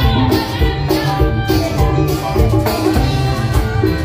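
Live band music: electronic keyboard and drum kit over a strong bass line with a steady beat.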